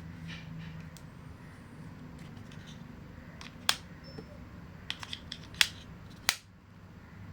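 A run of sharp, short clicks in the second half, about seven in all, three of them much louder than the rest, over a faint steady low hum.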